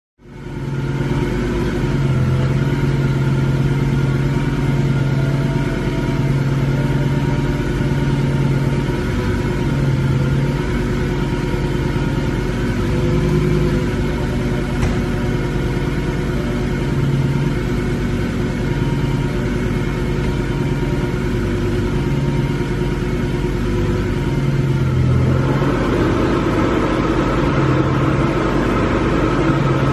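Lamborghini Gallardo's V10 engine idling steadily. About 25 seconds in the sound turns noisier and fuller.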